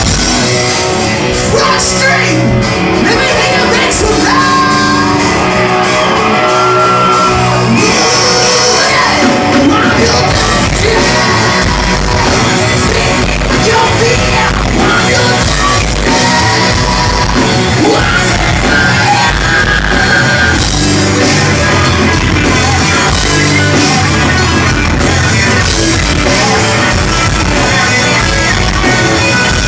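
Loud rock music played live in a large room: a band with a singer's shouted vocals over a steady beat.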